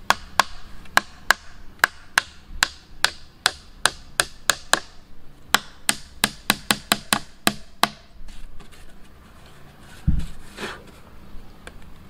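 Quick, repeated blows of a hand tool on wood, about three a second and briefly faster, stopping about eight seconds in. A single dull thump follows about ten seconds in.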